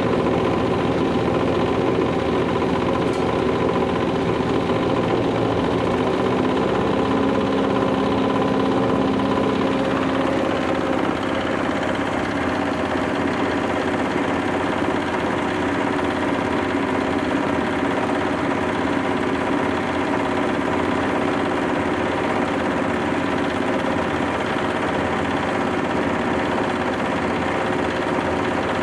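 Engine-driven hammer mill (bran grinder) running steadily while grinding peanut shells into fine powder. The pitch of the machine shifts slightly about ten seconds in.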